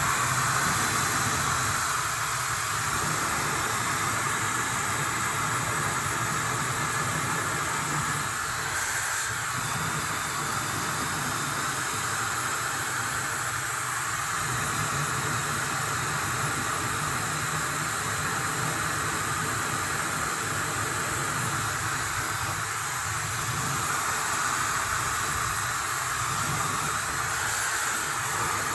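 Laifen hair dryer running, blowing air onto wet hair: a loud, steady whoosh of air that swells and eases slightly every few seconds.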